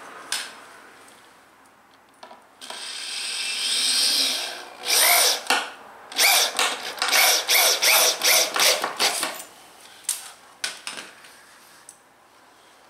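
Cordless drill driving a screw into a wooden bench board. There is one longer run about three seconds in, then a rapid string of short trigger bursts between about five and nine seconds, each rising in pitch as the motor spins up.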